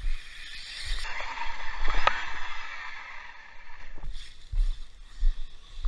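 Onboard sound of a 6S brushless RC truck running fast over gravel: rushing wind and gravel noise on the camera mic. It builds to its loudest about two seconds in, with a sharp knock there, then eases, with scattered low thumps throughout.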